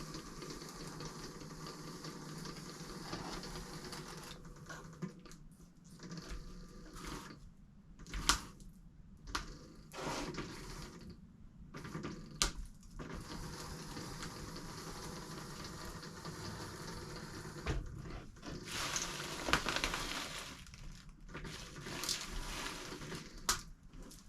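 Four hoverboard hub motors of a remote-controlled robot chassis driving in short spurts, with a faint steady electric whine and irregular bursts of wheel-on-ground noise.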